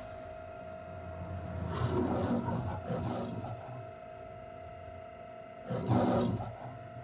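The MGM lion's roar from a movie's opening logo, played back through a home theater's speakers: a longer roar about two seconds in and a second, shorter roar near the end. A faint steady hum runs underneath.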